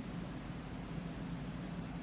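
Steady hiss with a low hum underneath: background noise of the room or recording, with no Morse tone sounding.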